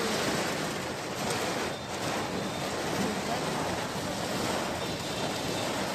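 Steady rush of wind and water: heavy monsoon rain and sea waves surging over a flooded seafront road, with wind buffeting the microphone.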